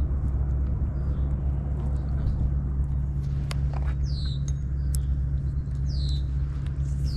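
A steady low engine drone, with a bird repeating a short falling whistle about every two seconds and a few sharp clicks.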